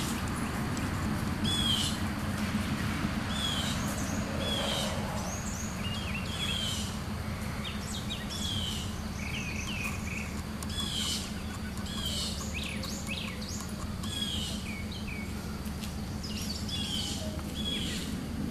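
Small birds chirping over and over in short, repeated calls, over a steady low background hum.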